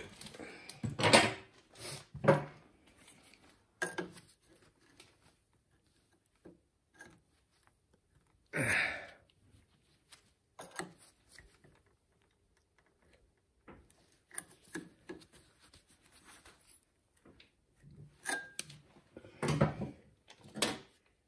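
Intermittent clicks, knocks and clatter of hand tools and metal parts being handled during hands-on repair work, with a short, louder noisy burst about nine seconds in and a busier run of knocks near the end.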